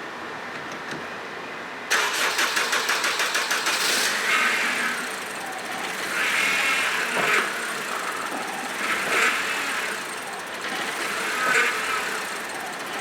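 2010 Honda Civic's engine cranked by the starter, catching about two seconds in and then running. A whine swells and fades every two to three seconds, from the power steering system just refilled with fluid.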